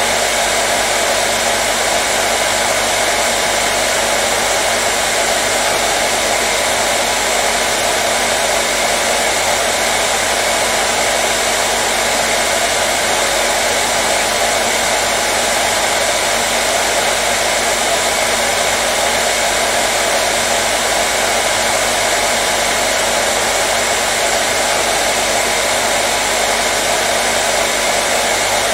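Hair dryer running steadily: an even, unbroken rush of air with a faint motor hum, used as white noise to calm a colicky baby.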